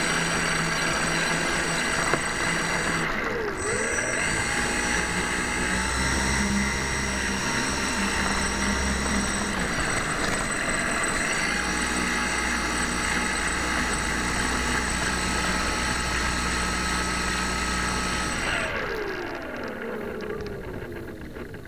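Propeller motors of a radio-controlled Transall C-160 model running steadily with a layered whine, dipping briefly in pitch and recovering about three seconds in. Near the end they spool down, the whine falling in pitch as the propellers slow to a stop.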